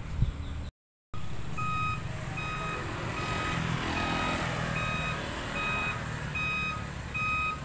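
Heavy truck's reversing alarm beeping steadily, about once every 0.8 seconds, over the low running of its diesel engine. It starts after a brief moment of a passing motorcycle and a short dropout.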